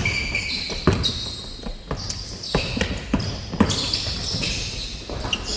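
A basketball bouncing on an indoor court in play, about six uneven bounces, with short high squeaks between them.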